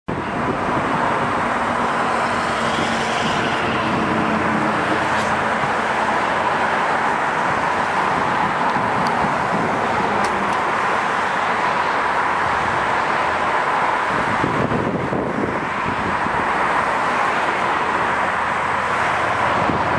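Steady hiss and hum of road traffic, with no single vehicle standing out.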